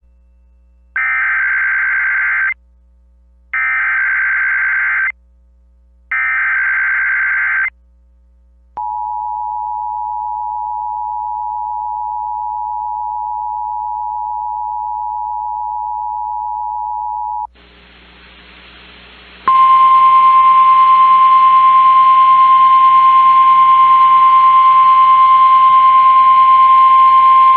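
Emergency Alert System broadcast alert. Three short screeching SAME data header bursts come first, then the steady two-tone EAS attention signal for about nine seconds. After a brief stretch of receiver hiss, the loudest part is NOAA Weather Radio's single steady 1050 Hz warning alarm tone, over hiss and hum; it signals a watch or warning message about to be read.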